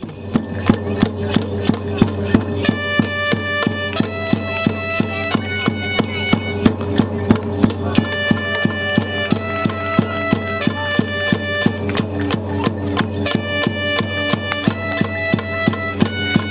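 Cheering music played on an electronic keyboard: a steady programmed drum beat with sustained, organ-like chords and melody notes that change every second or so, joining in about three seconds in.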